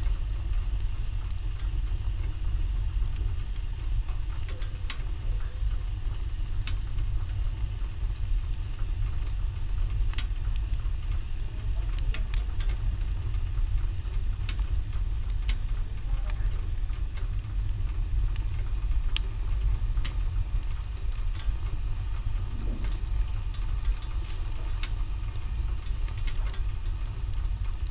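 Wood fire in a fireplace crackling, with scattered sharp pops over a steady low rumble.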